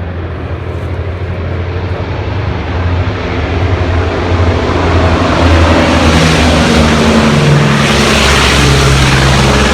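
Martin Mars flying boat's four radial piston engines and propellers growing louder as it approaches low overhead, then holding loud. A rushing hiss builds over the last few seconds.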